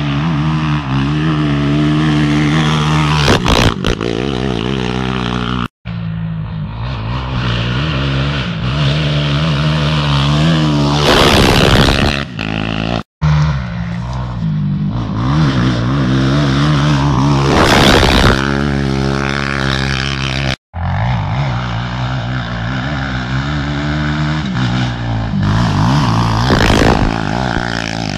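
Suzuki LTR450 sport quad's single-cylinder four-stroke engine revving hard and changing pitch as it is ridden along a dirt track, swelling loudly as it passes close by four times. The sound cuts out sharply three times for a moment.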